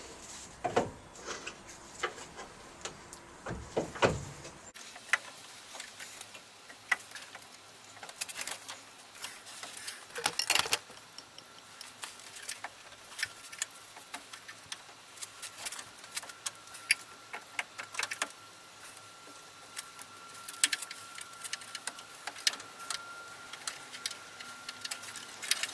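Scattered light clicks, taps and knocks of hand work in a car's engine bay, metal parts and tools being handled while the fan belt is freed from the dynamo pulley and fan.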